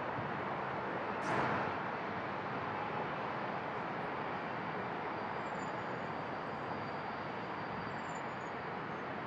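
Steady rushing outdoor noise of a windy airfield, with a brief louder swell about a second in.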